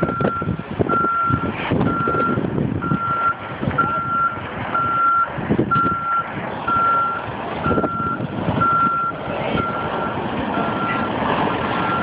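Large truck's reversing alarm beeping steadily, about once a second, over loud, rumbling heavy-truck noise.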